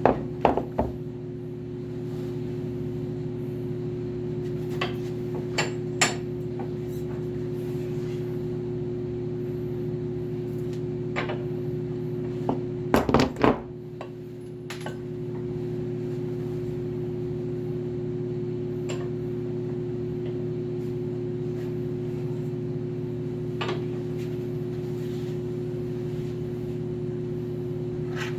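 Hand tools knocking and clinking on metal while a treadmill roller's bearing is worked on: a few quick knocks at the start, two more about five seconds in, a rapid cluster of strikes about thirteen seconds in, then single taps. A steady low hum runs underneath.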